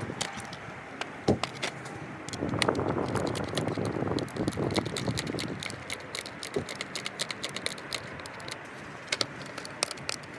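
Metal skate tool working a nut on a skateboard truck: quick metallic clicks and jangles, sparse at first and coming thick and fast in the second half.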